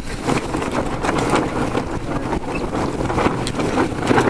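Wind buffeting the microphone and water rushing along the hull of a C&C 39 sailing yacht under sail, with a few short knocks from crew moving about the deck.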